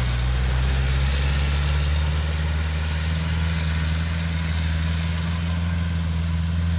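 Yanmar AW82V combine harvester's diesel engine running steadily at a constant speed.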